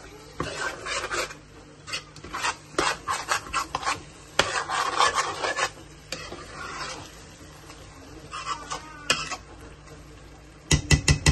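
A spoon or spatula scraping and stirring food in a cooking pot, in uneven bursts of short strokes. Near the end comes a quick run of sharper knocks against the pot.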